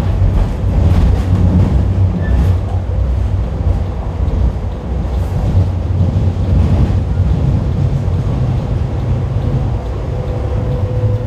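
Hong Kong Light Rail Kawasaki train running along the track, heard aboard the trailer car: a loud, steady low rumble of the car on the rails with a few faint clicks. A steady tone comes in near the end.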